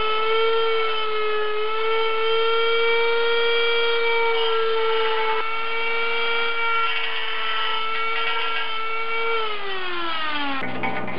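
Die grinder with a small cut-off wheel running at a steady high whine while cutting notches into stainless steel sheet, its pitch dipping slightly under load. Near the end it is switched off and its whine falls as it spins down, then cuts off abruptly.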